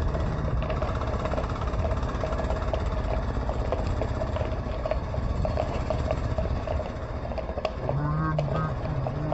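Vehicle engine running steadily while moving along a road, with a low road and wind rumble.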